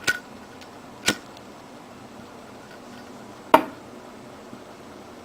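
Three sharp metallic clicks as a Zippo lighter is worked and lit. Two come about a second apart at the start, then a louder one with a short ringing tail about three and a half seconds in.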